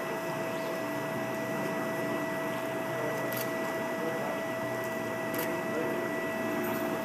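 Steady machine hum with a constant whine in it, and two faint ticks about three and five seconds in.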